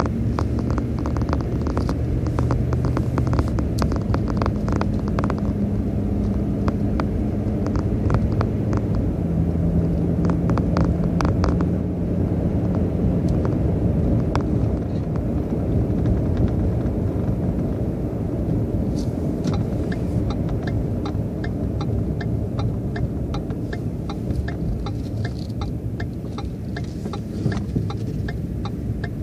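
Inside a moving car's cabin: a steady low rumble of tyres on the road and the engine running at cruising speed.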